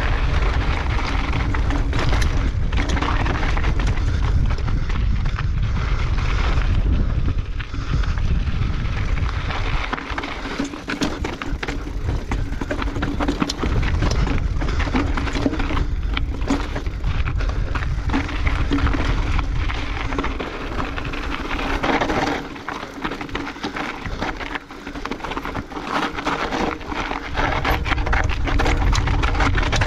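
Mountain bike descending rocky singletrack: tyres crunching and rattling over loose rock, with many sharp knocks and clatters from the bike, and wind buffeting the camera's microphone. The noise eases briefly about ten seconds in and again a little past twenty seconds.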